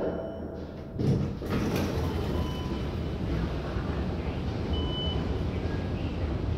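KONE MonoSpace glass elevator doors sliding open onto the metro station, letting in a steady station din with a low rumble. Short high electronic beeps sound twice, the second clearer.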